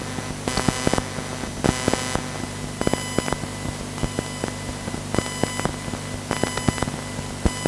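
Steady electrical hum and hiss with many irregular sharp clicks and brief beeps.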